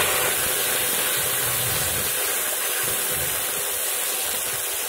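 Water poured into hot oil in a kadai of fried peanuts, dal and spices: a loud, steady hiss and sizzle of boiling-off steam that eases slightly over the few seconds.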